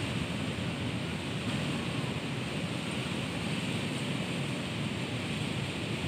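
Strong wind blowing through trees and shrubs, a steady rushing noise.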